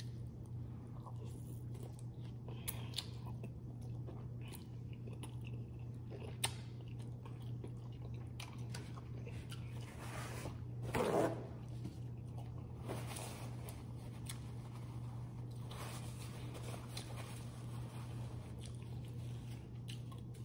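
A person chewing and biting food, with soft crunches and small clicks over a steady low hum. One louder noise comes about eleven seconds in.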